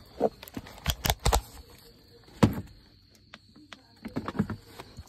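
A few separate knocks and clicks, with a quieter stretch in the middle: handling noise as a person climbs into a van's front footwell with a handheld LED work light and the phone filming.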